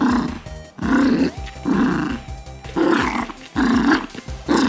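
Small bichon-type dog growling during tug-of-war play, in about six short rough growls one after another as she pulls on the toy; a play growl, not aggression. Background music plays underneath.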